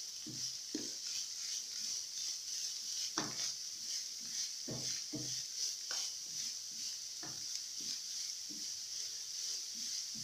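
Wooden spoon stirring and scraping minced beef, onions and carrots around a non-stick frying pan in irregular strokes, over a steady frying sizzle.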